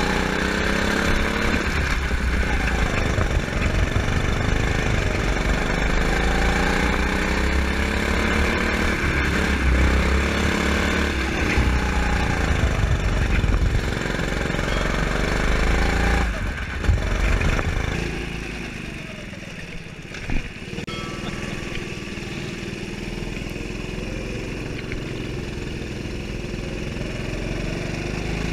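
Go-kart engine revving up and down as it laps the track, pitch rising and falling again and again. About two-thirds of the way through there is a sharp knock, and the engine drops to a quieter, lower running.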